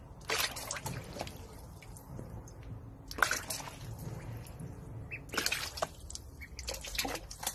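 A duckling splashing in a small plastic basin of water, the water sloshing in several irregular spells.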